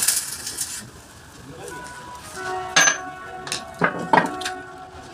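Heavy steel parts of a truck lift axle clanking against the press bed as they are handled: three sharp metallic knocks with a ringing tone, one about three seconds in and two close together about a second later. A crackling arc-welding hiss fills the first second.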